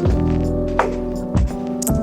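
Background music: piano or keyboard chords over a steady drum beat.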